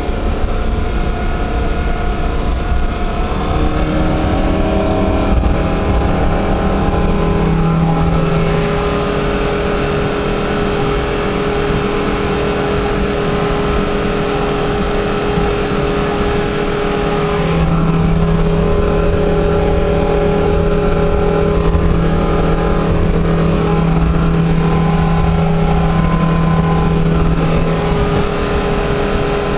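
Suzuki outboard motor running at steady high revs with the boat planing at speed, over rushing water and wind on the microphone. Its note climbs slightly a few seconds in, then holds steady.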